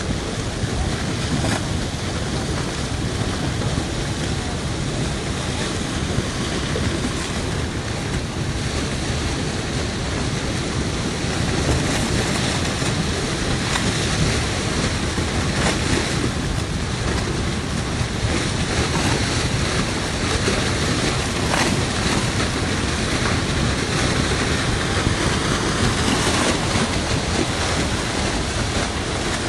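Flash-flood debris flow of mud and rocks rushing down the valley: a loud, dense, unbroken rushing noise, heavy enough to make the ground shake, with faint knocks here and there.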